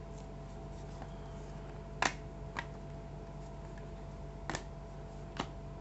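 A few short, sharp clicks and taps from an iPhone 5c and its box being handled, spaced a second or two apart, over a faint steady hum.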